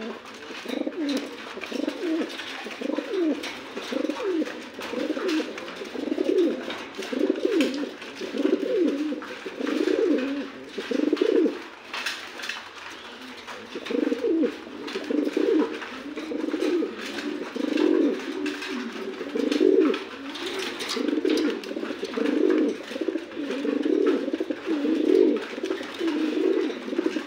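Domestic pigeon cooing over and over in low repeated phrases, with a short break about halfway through.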